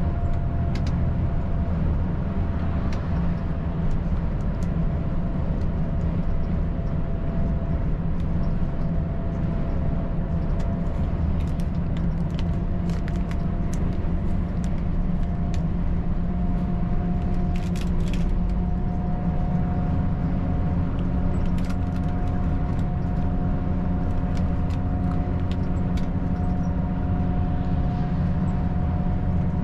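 Volvo FH 540 truck's 13-litre straight-six diesel running steadily at cruise, with road rumble, a faint steady whine and scattered light clicks.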